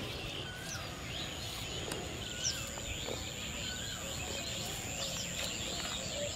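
Outdoor birdsong: many birds chirping and calling over a steady background hiss, with a thin steady high-pitched tone beginning about half a second in.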